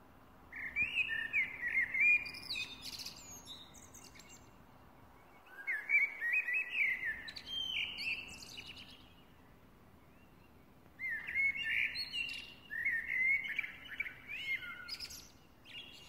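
Eurasian blackbird singing: three separate warbling phrases of a few seconds each, every one ending in higher, squeakier twittering notes, with quiet pauses between them.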